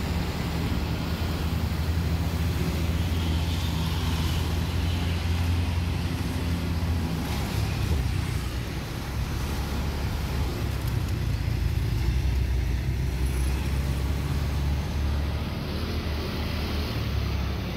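A road vehicle driving: a steady low engine hum with road noise.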